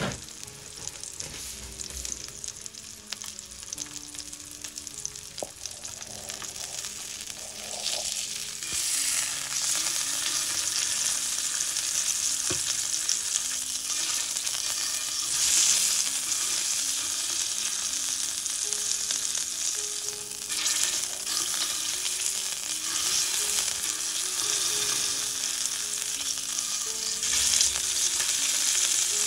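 Wagyu chateaubriand steak sizzling in hot fat in a copper frying pan. The sizzle grows louder about eight seconds in and swells briefly several times as the steak is lifted and turned over with tongs.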